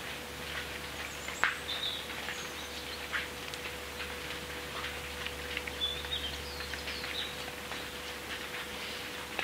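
Rain dripping and pattering on a wet path, with one sharper drop about a second and a half in. A few short, high bird chirps come through, near two seconds and again around six seconds.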